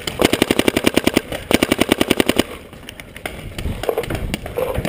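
Proto Rail electropneumatic paintball marker firing rapid strings of shots, about a dozen a second: one string lasting just over a second, then a second string after a short pause, followed by fainter scattered pops.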